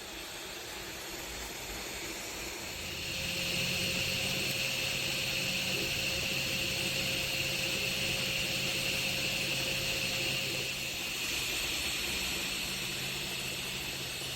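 Creality Ender 3 V3 SE 3D printer running: a steady whir of cooling fans with a high motor whine on top, getting louder about three seconds in.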